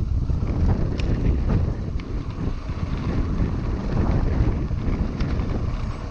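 Wind buffeting the microphone while a mountain bike rolls over a gravel track, with tyre rumble on the stones. A few sharp clicks and ticks sound through it.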